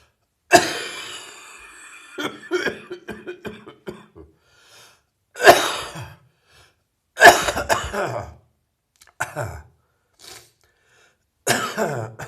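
A person coughing in repeated fits with a heavy chest cold: one long cough about half a second in, a rapid run of short coughs, then several more separate coughing bouts.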